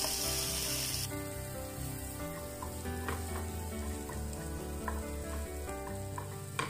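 Masala paste and fresh tomato pieces sizzling in a hot non-stick pan while a wooden spatula stirs and scrapes them. A sharper high hiss cuts off about a second in, and after that the frying is quieter, with scattered light clicks of the spatula against the pan.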